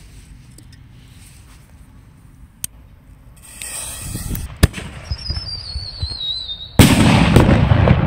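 Whistling Buster refill-set mortar shell: a sharp thump as it fires from its tube about four and a half seconds in, then a wavering whistle as it climbs, then a loud burst near the end with crackling after it.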